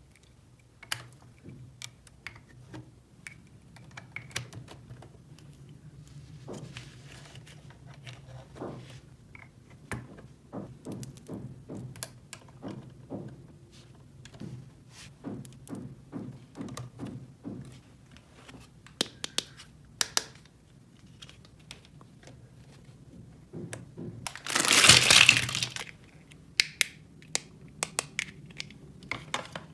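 Small plastic toy pieces being handled and set down: a long run of light clicks and taps, some in quick succession. About 24 seconds in comes a loud rustling rush that lasts about two seconds.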